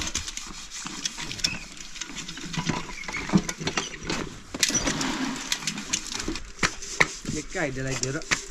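Irregular clicks and knocks of handling and clatter, with a short voice near the end.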